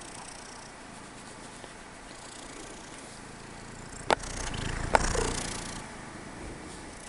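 Kitten sneezing twice in quick succession, two short, sharp sneezes a little under a second apart, with a low rumble around the second; the kitten is getting over a cold.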